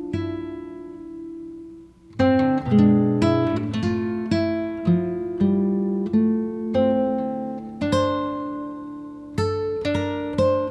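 Background music on plucked acoustic guitar: single notes and chords struck and left to ring out, with a short gap about two seconds in.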